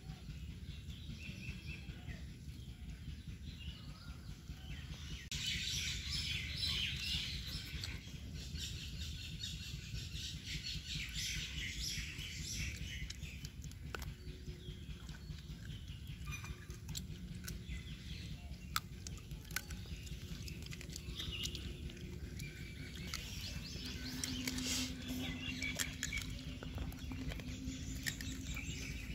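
Outdoor ambience: birds chirping in the background, with scattered small clicks and rustles over a low steady rumble.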